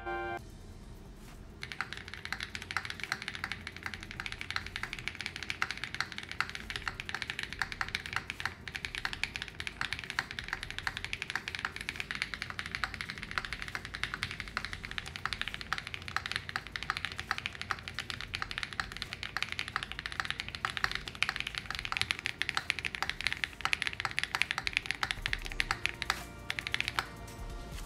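Continuous fast typing on a gasket-mounted Aeroboard70 mechanical keyboard with Blue Cheese switches, an FR4 flex-cut plate, a 1.2 mm flex-cut PCB with PCB foam, and Photo G keycaps: a dense stream of key clacks that starts about two seconds in and stops just before the end.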